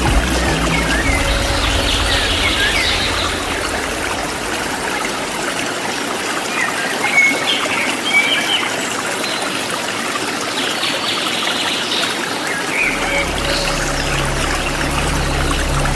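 Waterfall rushing steadily, with small birds chirping over it in several short runs of high calls.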